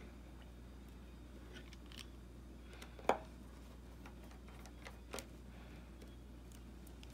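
A few small, sharp clicks of a precision screwdriver against the screws and metal shield plate of an iPhone 6s screen assembly, the loudest about three seconds in and another just after five seconds. A faint low hum runs underneath.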